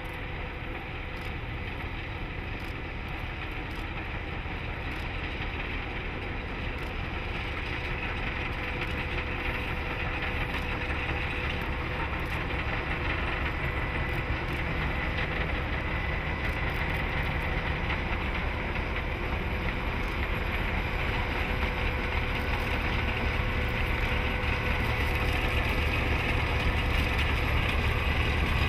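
DD14 rotary snowplow locomotive running with its diesel engines and rotary snow blower working, throwing snow off the track. The steady mechanical noise, with a steady whine in it, grows gradually louder as the plow approaches.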